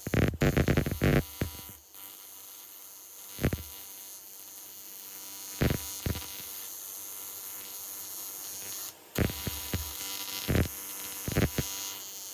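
AC TIG welding arc buzzing steadily on aluminium, with a high hiss. Several short sharp knocks come in the first couple of seconds and again here and there through it.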